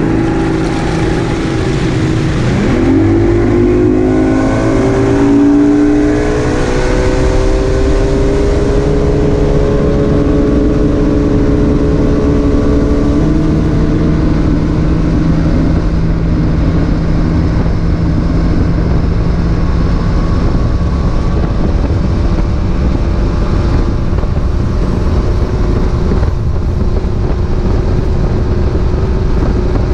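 Boat outboard motor speeding up, its pitch climbing over the first several seconds, then running at a steady cruising speed with a continuous rush of wind and water.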